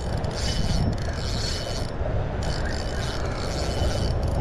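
Fishing reel being cranked in three stretches of about one and a half to two seconds, with short pauses between them, a scratchy mechanical whir over a steady wind rumble.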